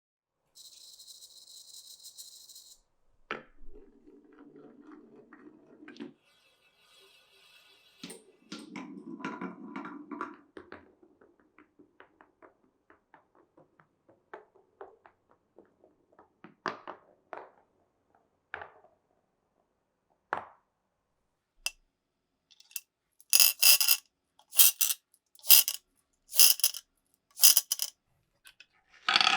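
Glass marbles running down a wooden marble run. They roll with a low rumble and tick along the track, and near the end there is a run of loud, bright clinking knocks about once a second.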